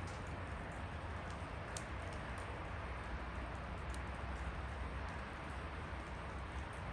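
Wood fire burning with a steady low rumble and hiss, broken by a few sharp crackles and pops from the burning wood.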